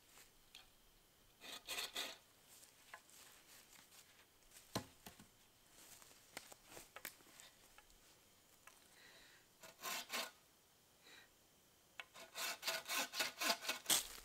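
Wooden-frame bucksaw cutting through a wooden pole, rasping in short, scattered strokes, then a quick run of four or five strokes a second near the end.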